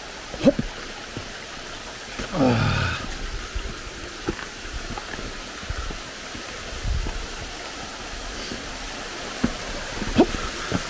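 Steady rush of water from a mountain stream. A brief voice sound comes about two and a half seconds in, and a few light knocks are scattered through.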